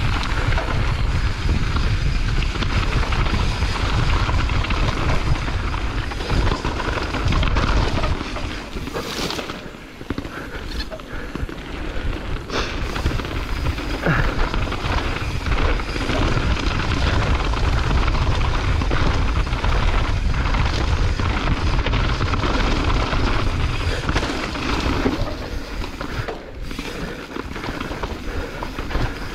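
Wind rumbling on an action camera's microphone as a mountain bike descends a dirt trail at speed, with tyres crunching over dirt and loose stones and a few knocks from the bike over bumps.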